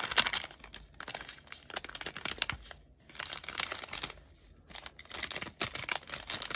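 Plastic packaging crinkled and rustled by hand, in several bursts of crackling with short pauses between.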